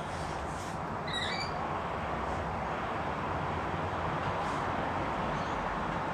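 A bird gives a short call of a few quick rising notes about a second in, over a steady background rush of noise.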